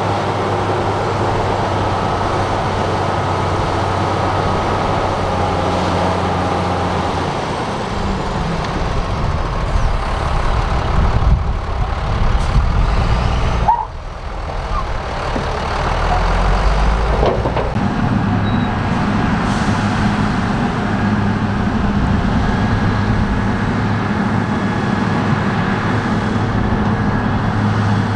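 Heavy diesel earthmoving machinery running steadily. About eight seconds in the engine note changes and grows louder and rougher, drops away suddenly for a moment around fourteen seconds, then settles back into steady running.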